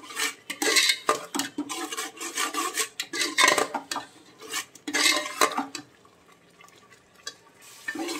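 Metal ladle scraping and knocking against the inside of an aluminium pressure cooker, stirring a thick masala paste as it fries in oil. The strokes repeat quickly for about six seconds, stop for about two seconds, then start again near the end.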